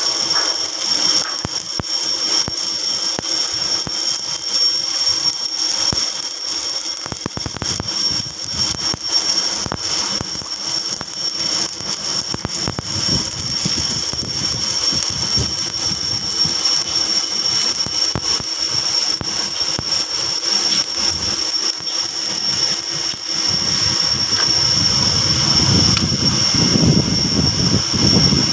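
Stick-welding arc crackling steadily as an electrode runs a bead around a steel shaft where it meets a plate, over a steady high-pitched whine. A low rumble builds near the end.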